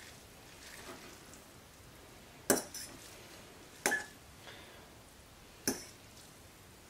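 A metal fork clinking against a bowl three times while stirring seasoning into a bowl of drained ramen noodles.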